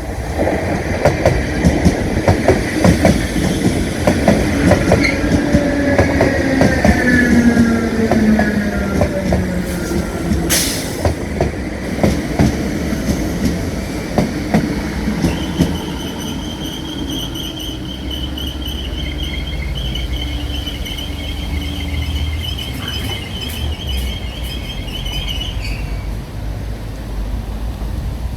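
Irish Rail 8100 class DART electric train arriving and braking. Its wheels clatter over the rail joints while a whine falls in pitch as it slows, with a sharp click about ten seconds in. A high, steady wheel or brake squeal follows for about ten seconds as it draws to a stop, over a low hum.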